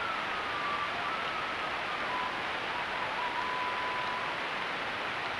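Coyotes howling in the distance: a few long, drawn-out howls, one easing down in pitch and the others held fairly steady, heard thinly over a steady hiss.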